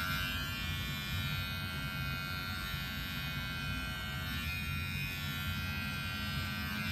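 Small cordless electric pet clipper running with a steady buzz as it trims a long-haired cat's fur around the head and neck.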